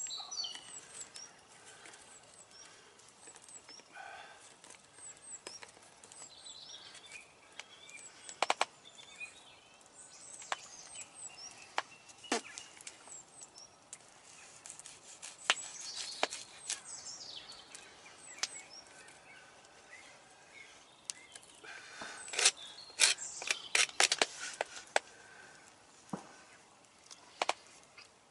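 Small birds chirping in the background, with scattered sharp clicks and taps of a knife cutting food on a plastic plate, coming thick and fast for a few seconds near the end.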